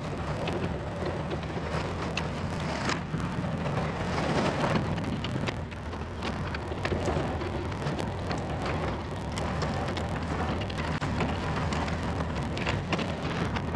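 Yanmar VIO50 mini excavator's diesel engine running steadily, with frequent cracking and crunching of sticks and brush as the machine works the ground.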